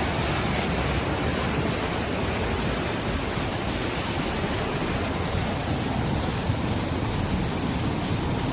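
Steady rushing noise of floodwater pouring through a street, even and unbroken.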